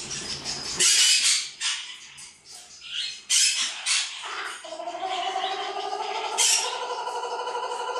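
Galah (rose-breasted cockatoo) calling. Two short, noisy screeches come in the first half. A little past halfway a long, buzzy call on a fairly steady pitch begins and carries on, with a fine rapid flutter in it.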